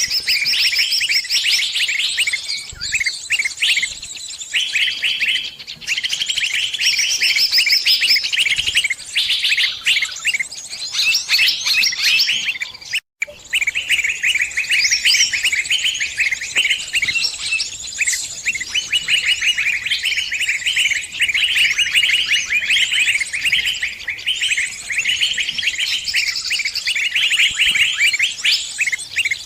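Sunbirds chirping in fast, high-pitched trills, one burst after another without pause, cutting out for a moment about thirteen seconds in.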